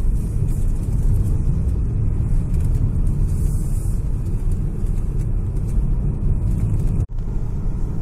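Steady low rumble of road and engine noise inside a moving car's cabin. It cuts out for an instant about seven seconds in.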